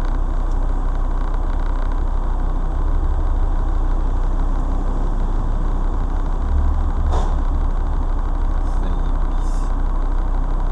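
Car engine idling while stopped, a steady low rumble heard from inside the cabin through a dashcam microphone, with one faint click about seven seconds in.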